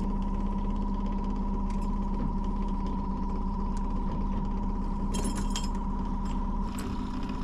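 Boat's outboard motor running steadily at slow trolling speed, an even hum with a low rumble. A short cluster of light clicks comes about five seconds in.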